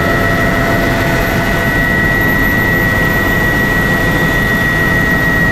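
Helicopter engine and rotor heard from inside the cabin in flight: a steady low rumble under a high, even whine.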